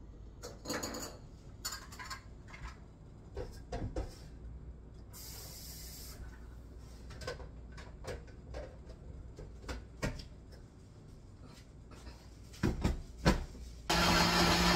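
Clinks and knocks of dishes and kitchenware being handled at a kitchen sink, with a brief hiss about five seconds in. Near the end a loud steady sound starts suddenly.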